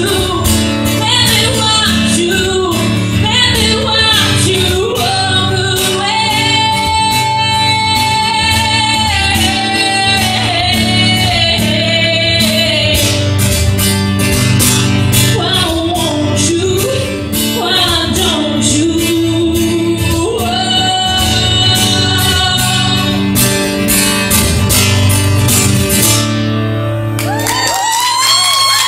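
Woman singing a country song live, accompanying herself on a strummed acoustic guitar; the guitar and low chords stop near the end as the song finishes.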